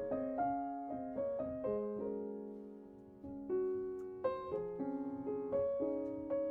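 Gentle piano music playing slow single notes and chords, each note fading after it is struck, with a brief quieter stretch around the middle before the notes pick up again.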